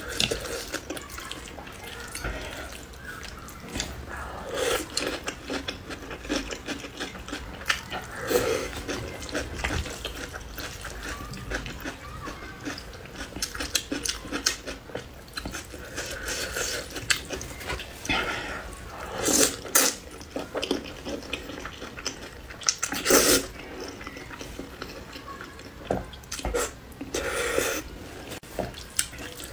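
Close-miked eating of spicy noodles: irregular wet chewing and slurping, with a few louder bursts in the second half.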